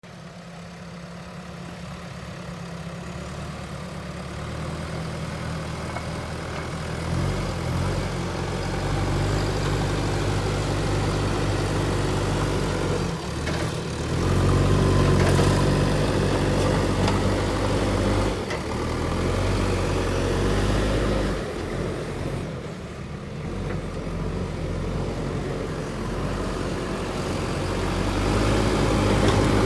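JCB 3DX backhoe loader's diesel engine running, growing louder over the first several seconds, its pitch shifting up and down several times as the work load changes.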